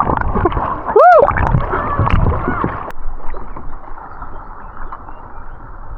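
Water splashing and churning around a paddled canoe, with one short shout about a second in. About three seconds in it settles to a quieter, steadier wash of water.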